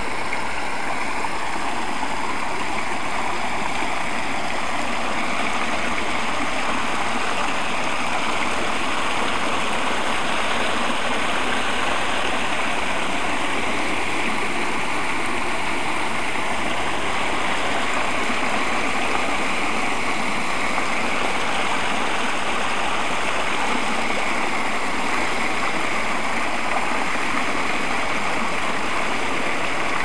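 Water fountain's waterfall running: a steady, unbroken splashing rush of falling water.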